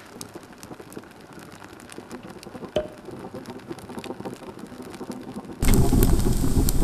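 Wood fire crackling and popping in a wood-burning stove's firebox, with burnt waffles burning on the logs as fuel. Faint with scattered small pops at first, then suddenly much louder and closer about five and a half seconds in.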